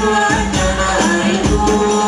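A man singing a melody into a microphone, accompanied by steady, rhythmic tambourine-like percussion.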